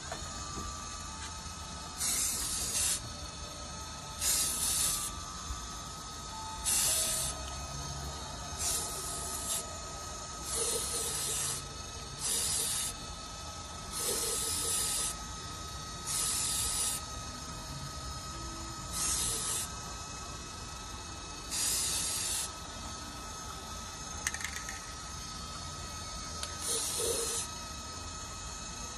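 Aerosol spray-paint can sprayed in short bursts: about eleven hisses, each under a second long, roughly every two seconds, with longer gaps near the end. A faint steady whine runs underneath.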